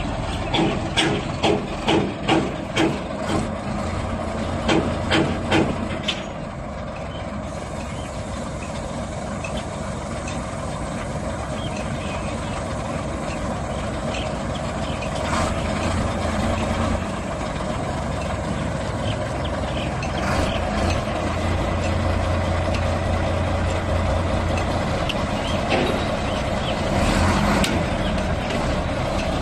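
Heavy diesel machinery engine running steadily with a low drone. For the first six seconds a repeating beep sounds about twice a second, like a reversing alarm.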